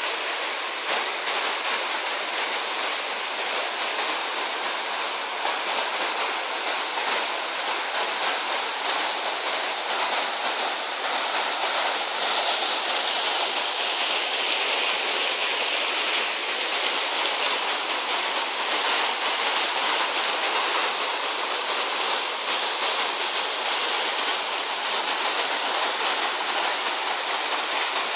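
Rushing water of a waterfall: a steady, unbroken rush with no pauses.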